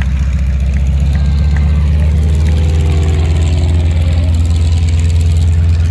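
Nine-cylinder radial engine of a North American T-6 Texan idling, a loud, steady low run. A fainter falling tone comes in about two seconds in and fades before the end.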